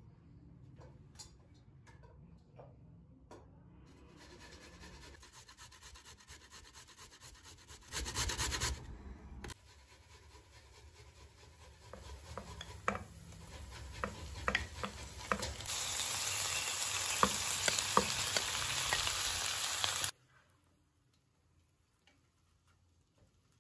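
Cubed raw beef sizzling as it goes into hot oil with fried onions, stirred with a wooden spatula that clicks and scrapes against the pot. There is a short loud burst of sizzling about eight seconds in, then the sizzle builds until it is loud and cuts off suddenly near the end.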